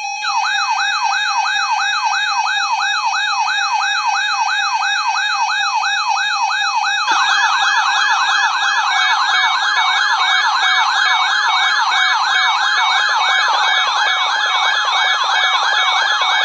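RadioShack 12-382 weather alert radio sounding its built-in siren alarm, set off by a NOAA Weather Radio required weekly test. A loud warbling tone sweeps up and down about two and a half times a second, then quickens to a faster warble about seven seconds in.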